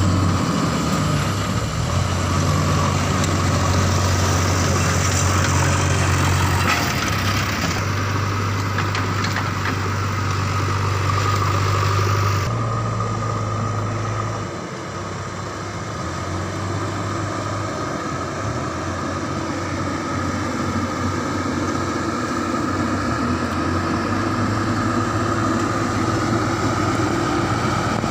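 Diesel engine of a JCB 3DX backhoe loader running with a steady low hum, its note shifting a few times and dipping briefly about halfway through.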